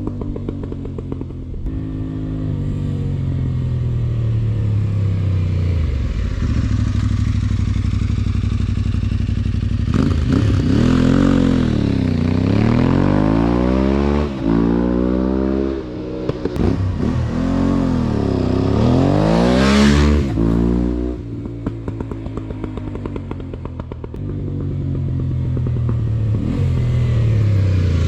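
Aprilia Tuareg 660 parallel-twin motorcycle with the Arrow full exhaust system, riding past the microphone twice. Each time the exhaust note swells as the bike nears and fades as it goes. The engine is heard running, its pitch falling, early on, and again near the end.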